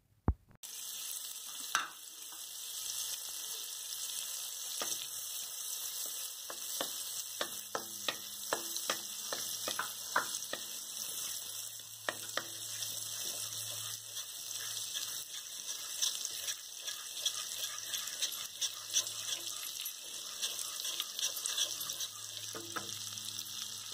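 Butter melting and sizzling in a hot kadhai, heating for a tadka: a steady hiss with frequent small pops and crackles, starting about half a second in.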